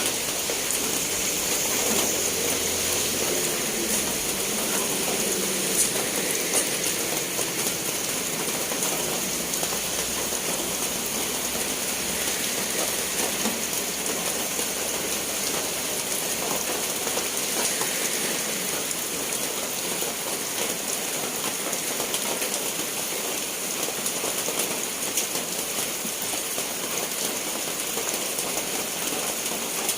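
Steady rain falling, a dense even hiss with fine patter of drops on surfaces.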